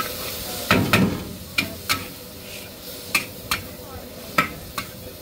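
Metal spatula clanking and scraping against a wok while noodles are stir-fried over a steady sizzle, with about eight sharp clanks at irregular intervals.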